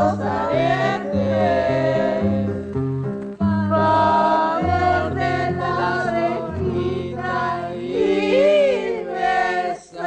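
A Mexican folk song: a voice holds long, bending sung notes in Spanish over a steady, pulsing instrumental accompaniment.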